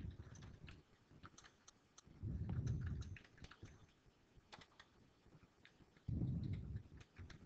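Computer keyboard typing: a scatter of light key clicks as a sentence is typed out. A dull low rumble, about a second long, comes twice, once near the middle and once near the end.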